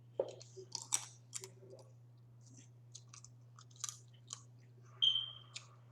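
Close-up mouth sounds of eating crawfish: chewing with scattered wet clicks and smacks, and a louder short sound with a whistling tone about five seconds in.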